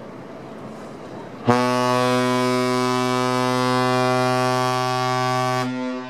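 Cruise ship Le Boreal's horn sounding one long, deep, steady blast. It starts abruptly about a second and a half in over steady background noise, and stops near the end, leaving a short echo.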